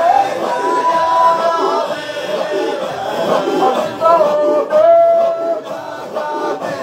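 A group of voices chanting a Qadiriya Sufi dhikr together, with a male voice holding long melodic notes, twice.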